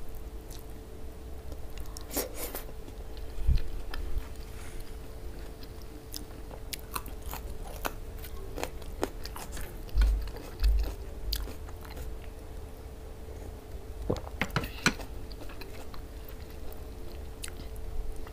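Close-miked chewing and wet mouth sounds of someone eating okra stew with meat and rice by hand, with many short sharp clicks, clustered about two seconds in and again near the end. A few low thumps and a faint steady hum sit underneath.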